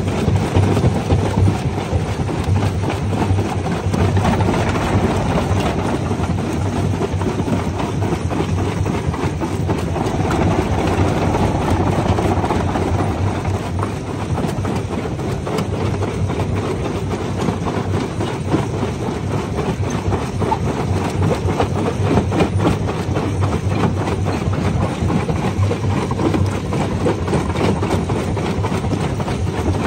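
Jaw crusher running and crushing stone: a steady machine drone under constant irregular rattling and cracking of rock being broken.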